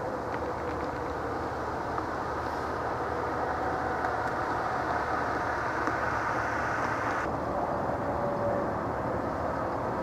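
Steady outdoor ambiance of distant traffic: an even rumble and hiss, with a faint drawn-out tone wavering faintly above it.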